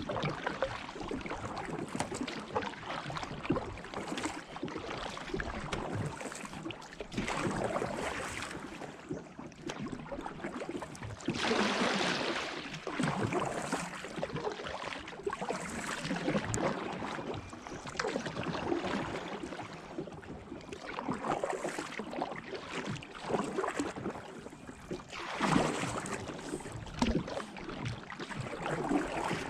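Kayak paddle strokes in the water, a splashing swell every few seconds over a steady wash of moving water.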